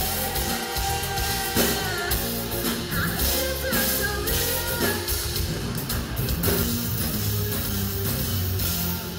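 Live rock-pop band playing: a woman singing into a microphone over drums, electric bass and guitar.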